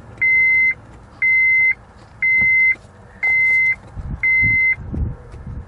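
2004 Honda CR-V's dashboard warning chime beeping, one high even beep about half a second long once a second, five times before it stops, with the ignition switched on and the engine off. A few low thumps come near the end.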